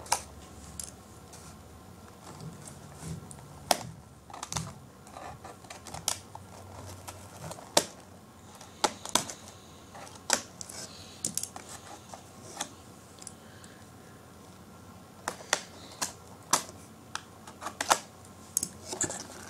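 Cardboard toy packaging being cut open with a small hand cutter: irregular sharp clicks and ticks of the blade and card, with a pause of a couple of seconds about two-thirds of the way through.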